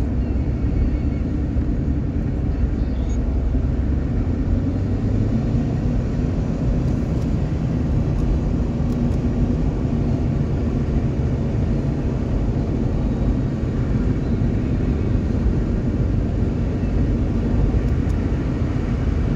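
Steady road and engine noise heard from inside a car's cabin cruising at highway speed, about 54 mph.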